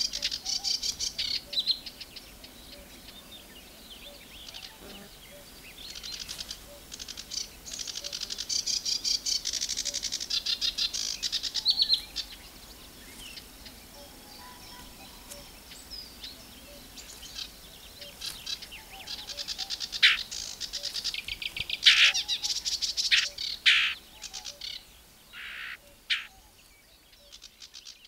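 Sedge warbler singing close to the microphone in long, fast chattering phrases, with a quieter gap of several seconds in the middle and a run of sharp, loud notes near the end.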